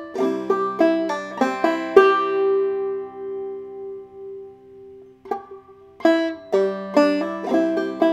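Five-string banjo played clawhammer style in double C tuning: a measure of plucked notes with a Galax lick, one note left ringing for about three seconds. After a short pause the playing starts again about six seconds in.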